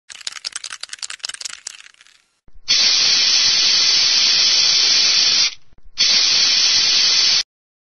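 Aerosol spray-paint can: about two seconds of rapid clicking rattle from the can being shaken, then two long, steady sprays of hiss. The second spray starts after a short break, and both cut off sharply.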